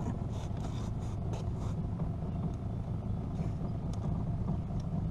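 Boat motor idling steadily with a low hum, with a few light clicks as a hooked catfish is handled and unhooked with pliers on the boat floor.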